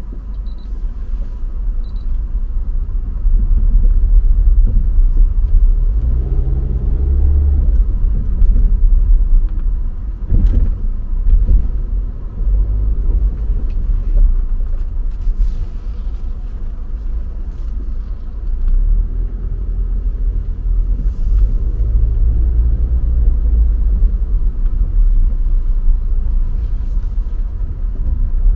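Car driving: a low rumble of engine and road noise, with the engine pitch rising and falling twice as the car speeds up and slows. A single sharp thump comes about ten seconds in.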